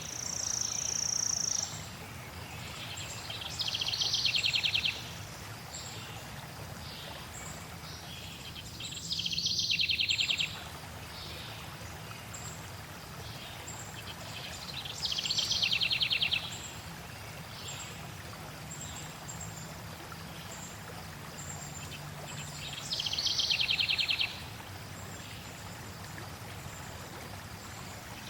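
Forest birdsong over steadily flowing water: a bird repeats a rapid high trill of about a second, four times, six to eight seconds apart, with faint short high chirps between.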